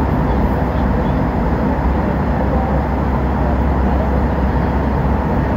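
Steady cabin noise of a passenger jet airliner in flight: a constant low rumble and rush of engines and airflow, unchanging throughout.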